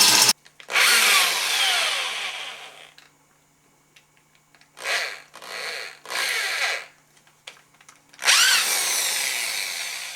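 Power drill with a step bit boring through a metal brew kettle wall, run in bursts: a long pull that fades away, three short bursts, then another long pull near the end.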